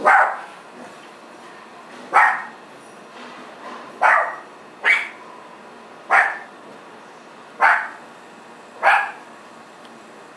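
A dog barking: seven sharp single barks, spaced irregularly about one to two seconds apart.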